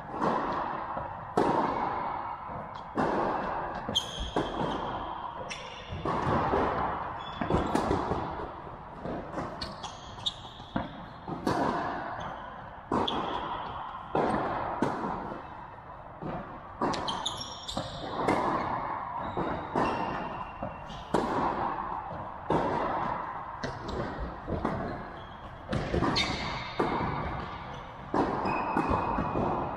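Tennis balls struck by rackets and bouncing on the court during rallies, a sharp hit or bounce about every second and a half, each ringing out in a large reverberant indoor hall.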